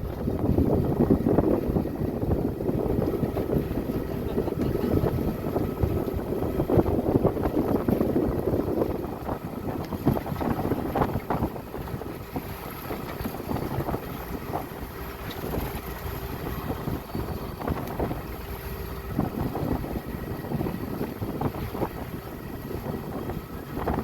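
Wind buffeting the microphone on a sailboat under way, with water rushing past and a faint steady hum from the motor driving the boat under sail. The buffeting is heavier for the first nine seconds or so, then eases.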